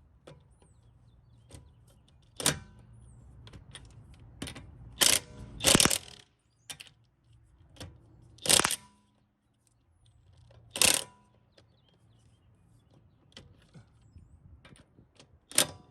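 Lug nuts being tightened with a socket wrench on a car wheel: about six short, loud metallic ratcheting bursts at uneven intervals.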